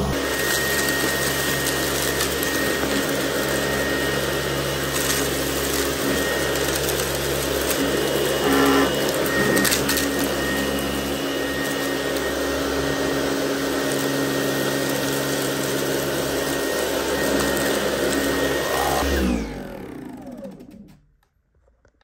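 Dyson cordless stick vacuum running steadily with its cleaner head's brush bar turning, a constant motor whine with a few brief clicks. Near the end it is switched off and winds down in pitch to silence.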